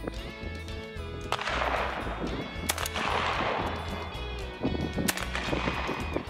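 Shots from a 12-gauge MC 21-12 semi-automatic shotgun, a few sharp reports each trailing off in a long outdoor echo, over background music with a steady beat.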